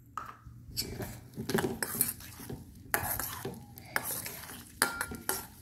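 Steel spoon stirring a wet mixture in a stainless steel bowl, with irregular clinks and scrapes of metal on metal.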